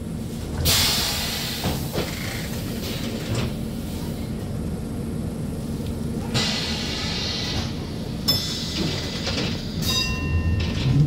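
M23 tram standing at a stop with a steady electrical hum, two short hisses and a click, then a brief multi-tone chime about ten seconds in. Right at the end its motors start a rising whine as the tram pulls away.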